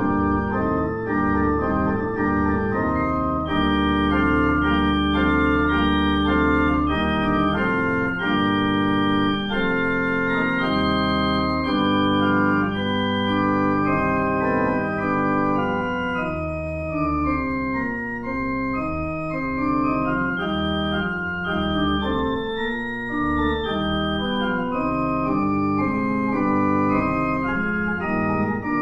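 Organ music: held chords over a sustained bass, with notes moving above them, played as the postlude after the service's dismissal.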